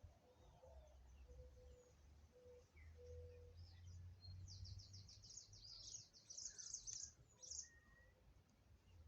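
Faint bird chirping: scattered high calls, with a quick run of chirps about halfway through, over a low hum.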